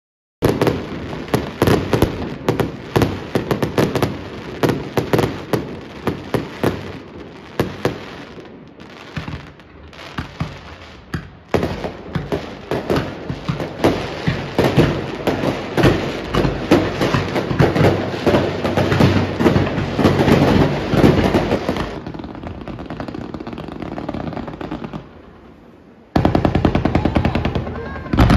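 Fireworks display at close range: a dense, rapid barrage of bangs and crackling. It eases off and grows quieter for a few seconds near the end, then picks up loudly again.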